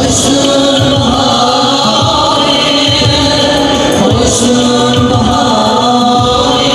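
A man singing an Uzbek song into a handheld microphone through a PA, holding long notes over amplified backing music with a steady beat.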